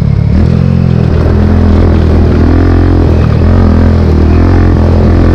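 KTM Duke 250's single-cylinder engine running as the bike is ridden over a rough dirt track, its revs rising and falling with the throttle.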